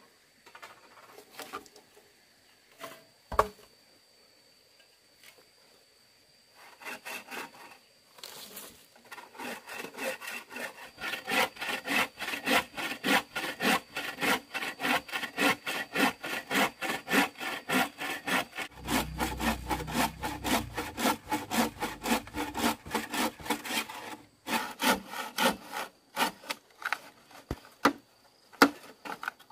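Hand saw cutting wood in quick, even back-and-forth strokes, about three a second. The strokes start a few seconds in after a couple of single knocks and break up into scattered strokes near the end, over a faint steady high-pitched whine.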